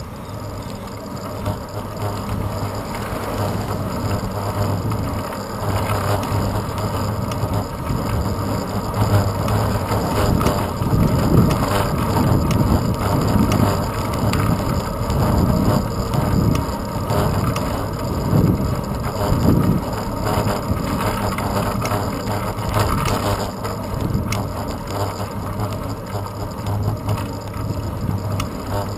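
Riding noise from a moving road bicycle heard through a handlebar-mounted GoPro Hero 2: a steady rumble of tyres and bike on the road, with uneven gusts of wind buffeting the microphone, heaviest in the middle stretch.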